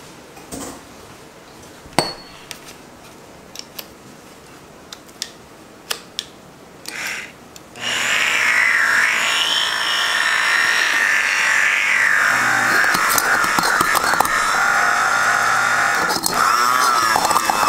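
A few light clicks and taps, then about eight seconds in an immersion blender starts running in a stainless steel bowl of vinaigrette. It makes a steady motor whine that wavers in pitch as the blade churns the liquid, while olive oil is poured in to emulsify the dressing.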